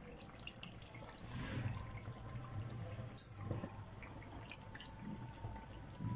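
Masala gravy simmering in a wok with small scattered bubbling pops, as raw fish pieces are set into it with a few soft wet plops.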